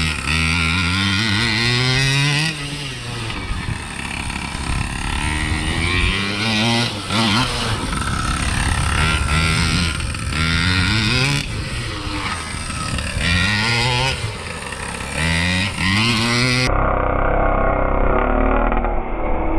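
Small gas two-stroke engine of a Primal RC Raminator large-scale monster truck, revving up and dropping back in surges about every two seconds as it is driven, with the engine still finishing its break-in. The sound turns duller for the last few seconds.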